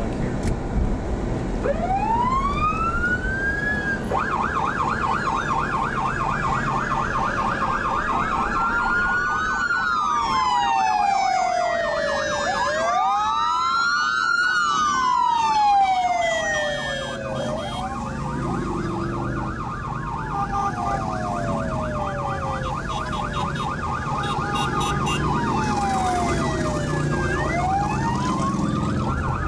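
Police car sirens heard from inside a squad car: one runs a fast yelp throughout while other sirens wail, rising and falling and overlapping, most thickly in the middle. Near the end, motorcycle engines go by.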